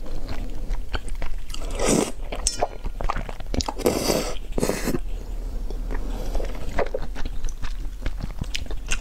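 Noodles in black bean sauce being slurped in noisy pulls, about three times in the first half, with wet chewing and mouth clicks between and after.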